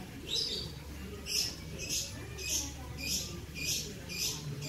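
Short high-pitched chirps repeating evenly, a little under two a second, over a faint low hum.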